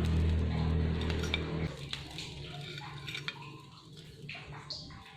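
A steady low hum stops about a second and a half in, followed by light clinks and taps of dishes and cutlery being handled in a kitchen.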